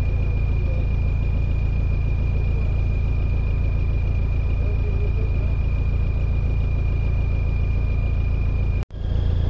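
A diesel engine idling steadily, with a thin steady whine above its low hum. The sound breaks off suddenly near the end.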